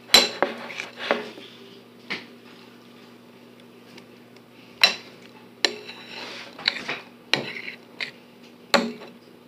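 Utensil knocking and clinking against a mixing bowl about ten times at irregular intervals while slime is mixed, with a little scraping between knocks.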